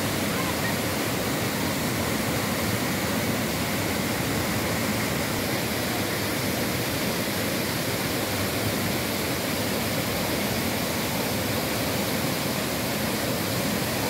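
Waterfall pouring over a rock ledge into a pool, a steady, even rush of falling water.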